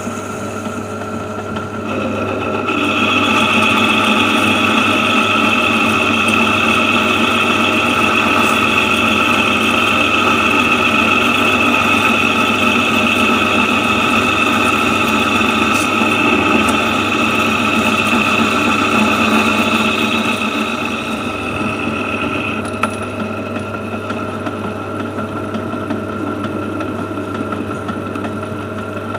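Metal lathe running while a parting tool cuts through an aluminium bar. A high, steady tone rises over the motor hum about three seconds in and stops a little after twenty seconds, as the cut goes on and then ends.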